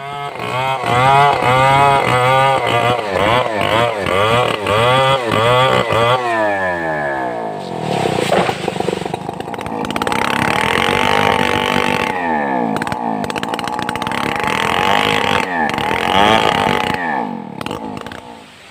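Stihl 070 two-stroke chainsaw revving up and down repeatedly, then running steadily under load, cutting timber with a nearly worn-out chain, and dropping away near the end.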